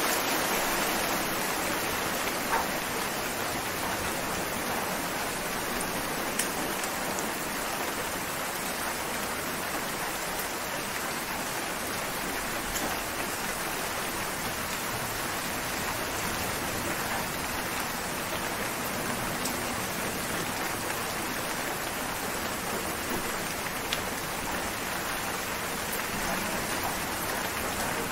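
Steady rain falling, an even hiss with a few sharper single drops now and then.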